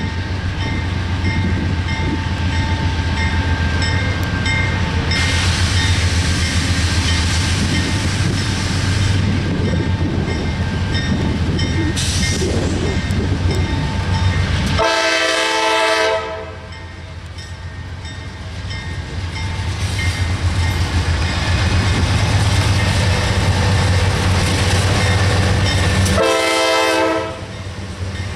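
Approaching GE diesel-electric freight locomotives running under power with a steady low drone. The lead unit's Nathan K5LA air horn sounds a long blast about halfway through and a shorter one near the end.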